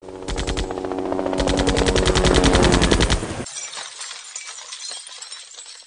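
Animated video intro soundtrack: a rapid, machine-gun-like rattle of about ten hits a second over sustained music tones, which stops about three and a half seconds in and gives way to a fainter high crackle.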